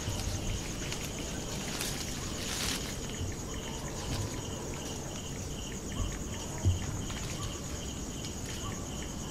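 Crickets chirping steadily in a fast pulsing trill at two pitches, one high and one very high. There are a couple of low thumps about six and six and a half seconds in.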